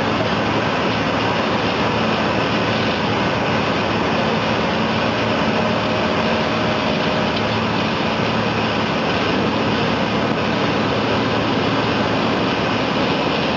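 High-pressure water jet blasting sideways from a jet perforating tool: a loud, steady rushing hiss that does not let up, with a low steady hum underneath.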